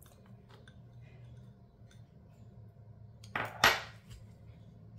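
Diced red onion tipped into a large ceramic bowl of chopped salad with faint light patters, then a short, loud scrape and clatter of crockery about three and a half seconds in as the wooden spoon starts stirring and the emptied small bowl is set down.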